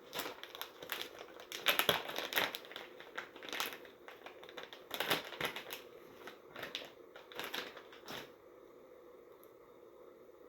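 Irregular crinkling and rustling from hands working long hair into braids, which stops about eight seconds in.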